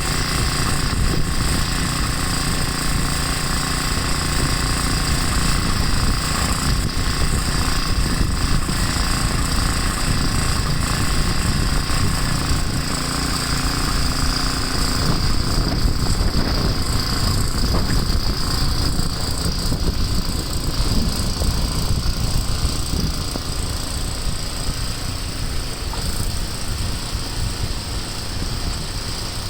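Small engine of an old walk-behind snowblower running steadily while clearing deep snow.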